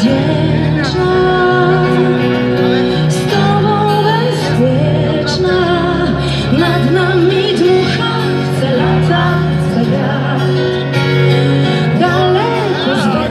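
A live band playing a song with electric guitars, keyboards and drums, a woman singing the lead melody over it.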